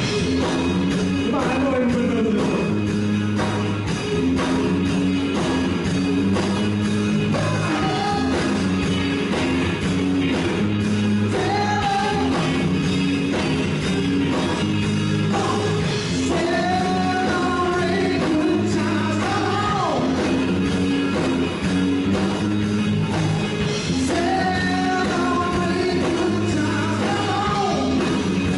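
A song with a singing voice over a steady bass line, starting abruptly.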